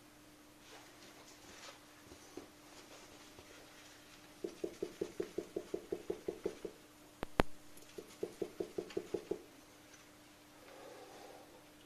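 Koni Special Active shock absorber knocking as it is worked: two quick runs of evenly spaced knocks, about six a second, a fault the uploader puts down to a defective damper. A sharp double click comes between the two runs, over a faint steady hum.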